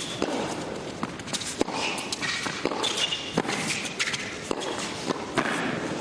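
A tennis rally on an indoor hard court: rackets striking the ball every second and a half or two, with players' shoes squeaking in between.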